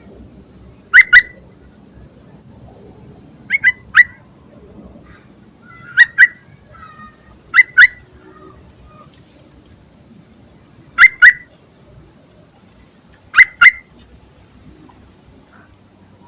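Yellow-vented bulbul (trucukan) calling: short, sharp, clear notes, mostly in pairs, six times a couple of seconds apart. It is the female's call used to lure a male.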